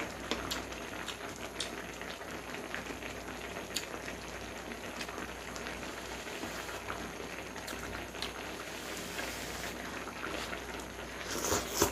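A pot of Spam and kimchi hotpot bubbling at a simmer: a steady bubbling hiss, dotted with small clicks and with a louder burst of noise near the end.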